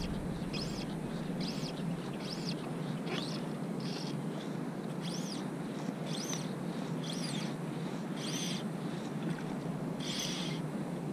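A bird calling outdoors: a short, high note that rises and falls, repeated roughly once a second. Under it runs a steady low rumble of wind.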